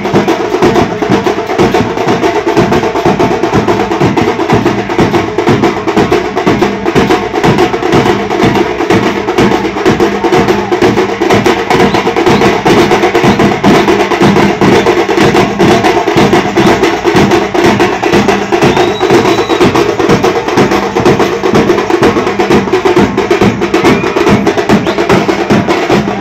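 A band of several large steel-shelled drums beaten with sticks, playing a fast, loud, unbroken rhythm of dense strokes.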